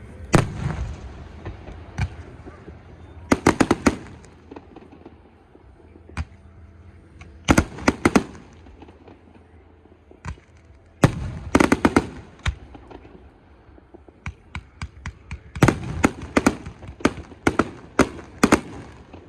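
Fireworks going off: loud bangs in clusters of quick reports every second or two, with a denser run of crackling bangs near the end.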